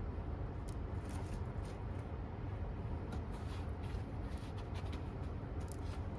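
Scattered light rustling and crackling handling noises, like hands working with soil or a plant pot, over a steady low rumble.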